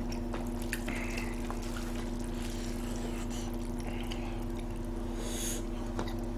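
Steady hum and whir of an electric fan, with faint clicks and wet sounds of chopsticks lifting long sauced noodles from a plastic container.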